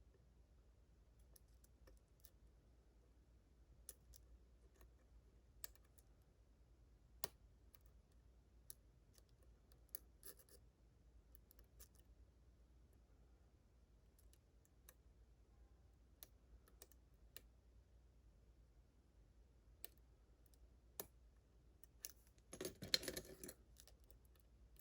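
Faint, scattered clicks of a hook pick and tension wrench working the pin stacks of a Ruko 600 lock cylinder, with a short, louder clatter near the end.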